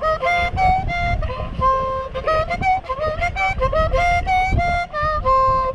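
Harmonica played in a quick run of notes, often several at once, with short bends in pitch. Wind rumbles on the microphone underneath.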